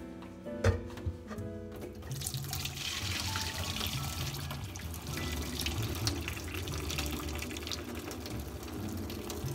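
Hot pasta water poured from a pot, held behind its lid, into a stainless steel sink, splashing steadily down the drain from about two seconds in, over background music. A single sharp knock under a second in.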